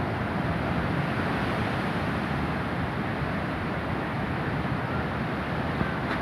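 Heavy surf from a rough Atlantic sea: a steady rushing wash of breaking waves, with no single crash standing out.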